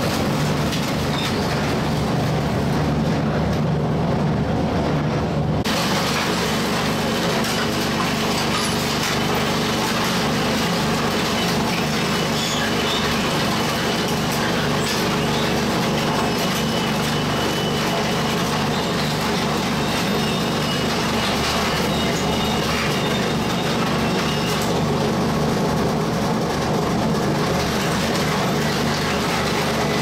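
Twin-shaft shredder running: its drive hums steadily while the hooked blades crunch and tear refrigerator scrap (foam insulation, sheet metal and wire), with sharper crackling from about six seconds in.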